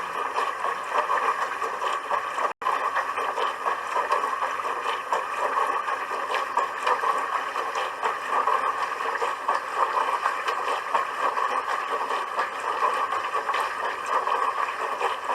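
Dishwasher running: a steady rush of water spraying and splashing inside the tub. There is a split-second dropout about two and a half seconds in.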